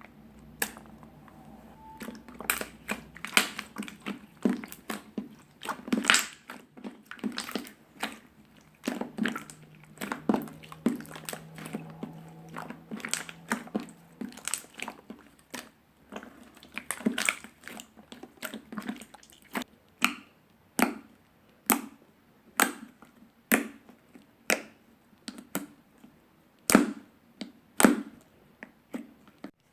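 Slime being kneaded, stretched and pressed by hand, giving off sticky clicks and air-bubble pops. The pops come in irregular clusters at first, then settle to about one pop a second near the end.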